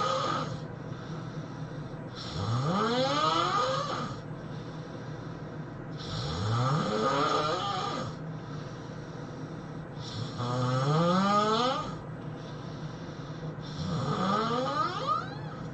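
A man snoring in a regular rhythm: the tail of one snore, then four more, one about every four seconds, each rising in pitch and rasping with a hissy edge.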